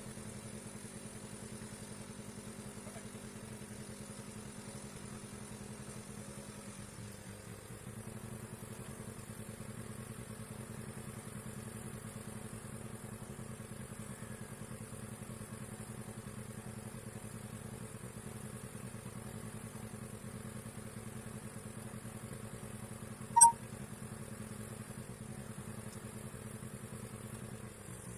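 A steady mechanical hum, like an engine or motor running at an even speed, with one sharp click about 23 seconds in.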